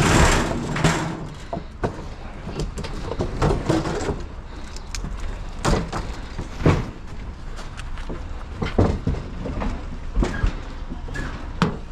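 Irregular knocks, clunks and scrapes of metal appliances being shifted and tipped into place while loading them as scrap.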